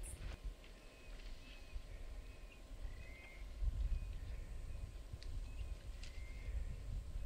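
Outdoor ambience: scattered short bird chirps with a few sharp clicks over a low, uneven rumble.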